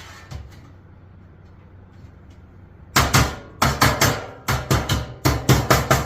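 Hammer striking sheet metal, tapping the seams of a duct fitting together. After a few seconds of faint handling, a fast run of sharp metallic hits starts about three seconds in, at roughly three to four strikes a second in short clusters.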